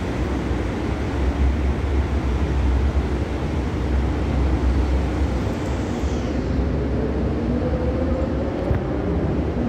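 A Daewoo diesel multiple unit approaching on a test run: a steady low rumble, with an engine note slowly rising in pitch from about six seconds in.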